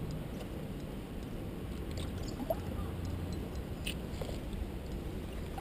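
Low steady rumble of wind and handling on a GoPro's microphone, with a few faint clicks about two and four seconds in.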